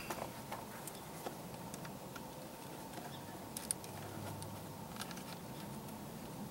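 Faint scattered clicks and light ticks of a screwdriver and screws as the door panel's screws are driven back in by hand, the sharpest click a little over halfway through, over a low steady background.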